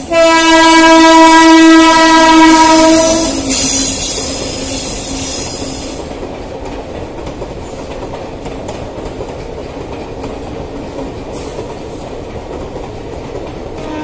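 Electric locomotive sounding one long horn blast of about three seconds, followed by the steady running noise of its passenger coaches' wheels on the rails as the train rolls past.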